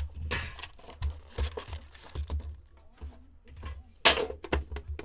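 Foil hockey card packs crinkling as they are handled and lifted out of an Upper Deck Series 2 metal tin, with a few clicks and knocks from the tin and its plastic insert tray. The loudest rustle comes about four seconds in.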